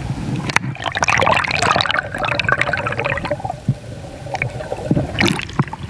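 Seawater gurgling and splashing close to the microphone, with a crackle of small clicks. A dense stretch starts about half a second in and runs to about three seconds, then it eases and comes back briefly near the end.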